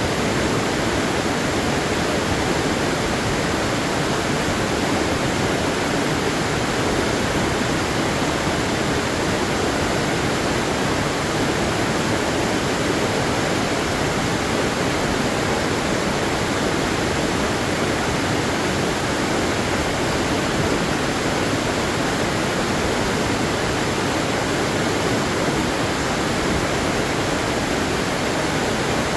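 Waterfall: water falling and rushing in a steady, even roar of noise that does not change.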